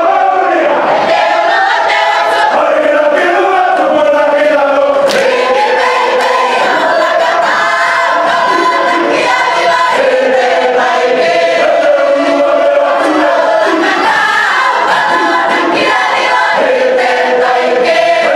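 Cook Islands imene tuki choir: men's and women's voices singing a hymn together in many-part harmony, loud and without a break.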